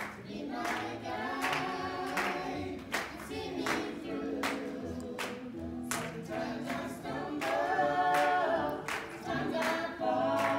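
Several voices singing a gospel song in harmony, with a sharp beat about every three quarters of a second.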